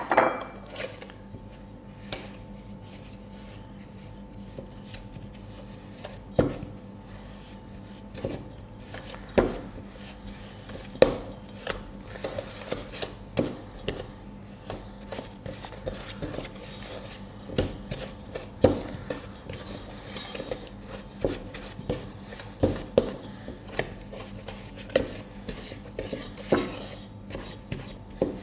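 Wooden spoon creaming butter and sugar in a stainless steel bowl: irregular knocks and scrapes of the spoon against the metal, sparse at first and coming about once a second after the first few seconds.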